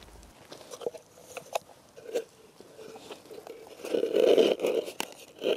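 Hands scraping and crunching dry straw and soil on the ground around a buried pitfall trap, with scattered small clicks, then a louder stretch of rustling about four seconds in as a square cover is laid over the trap.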